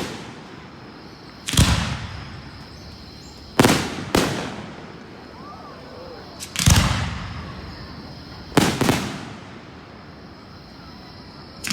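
Fireworks bursting: six booms in about nine seconds at uneven spacing, two of them in quick pairs, each trailing off in an echoing rumble.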